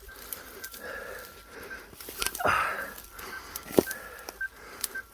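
Crashed Parrot Disco drone giving out a pulsing electronic beep, high and evenly repeated over a faint steady tone: the drone is still powered after the crash. There is a breathy rustle about two and a half seconds in and a sharp knock near four seconds.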